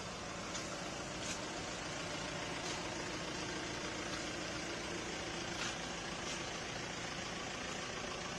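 A vehicle engine idling with a steady hum over a constant background hiss of traffic, with a few faint clicks.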